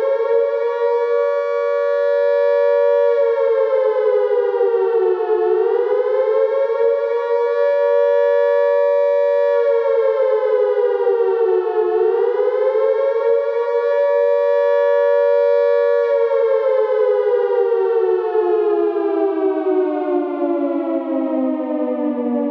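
A wailing siren tone that dips and climbs about every six and a half seconds, holding at its high pitch for a few seconds each time, then slides slowly and steadily downward over the last several seconds as if winding down.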